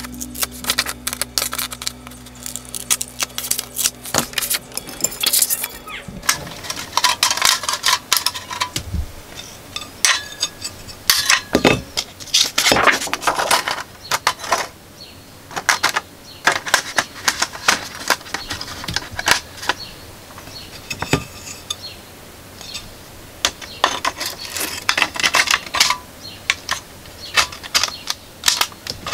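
Scissors snipping a thin translucent sheet, then the sheet rustling and crackling with short clicks as it is handled and pressed into a floodlight's front glass frame.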